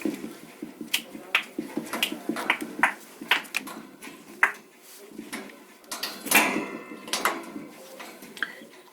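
African grey parrot making a string of sharp clicks and short mumbled, speech-like sounds, with knocks of its beak and feet on the cage as it climbs about.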